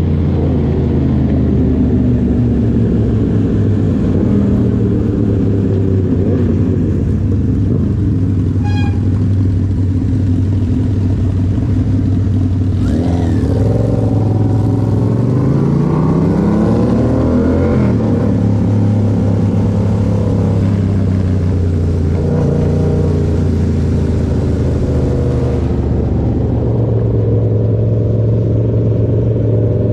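Yamaha MT-07's 689 cc parallel-twin engine through an aftermarket Toce exhaust, running under way at a steady engine speed. About halfway through, the pitch rises as the bike accelerates, then settles back.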